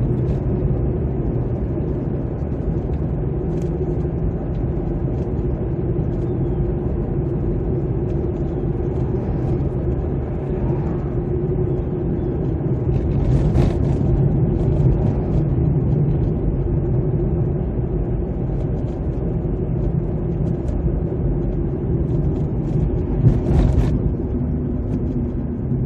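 Steady engine and tyre rumble of a car driving along a town street, heard from inside the cabin. A brief louder swell of noise comes about halfway through and another near the end.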